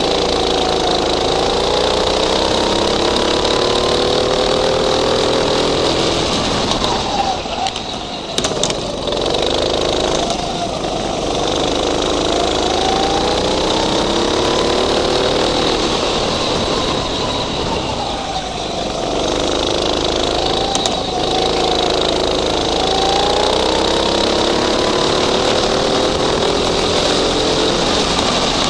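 Go-kart engine heard from on board, revving up as the kart accelerates and dropping off sharply twice when the throttle is lifted for corners, then climbing again.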